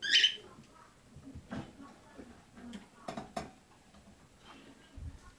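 Metal birdcage bars clicking and rattling a few times as a kitten paws and climbs at them. A short, loud, high-pitched sound comes right at the start.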